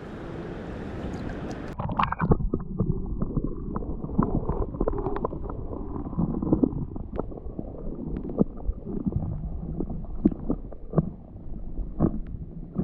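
Muffled handling noise: irregular dull knocks and rumbling. From about two seconds in the higher sounds are cut off, as when the microphone is covered.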